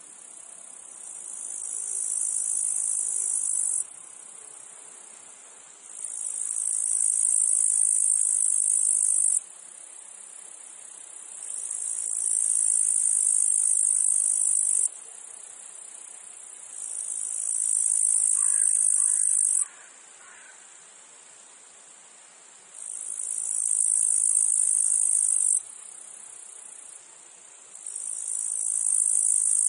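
Cicadas singing in a meadow: a high buzz that swells up over a second or two, holds for a few seconds, then cuts off suddenly, repeating about every five to six seconds. A fainter steady insect hum continues between the phrases.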